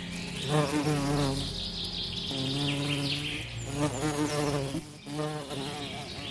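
A flying insect buzzing, its pitch wavering up and down, in three stretches of about a second each. Faint bird chirps sound behind it.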